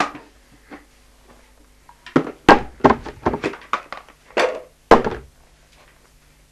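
Thumps and knocks from a plastic wastebasket being handled and set down on a wooden table: a single knock at the start, then a quick run of about eight sharp thumps over some three seconds.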